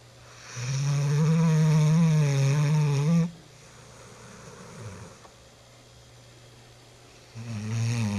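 A young German shorthaired pointer snoring: one long snore lasting nearly three seconds, a quiet breath, then the next snore beginning near the end.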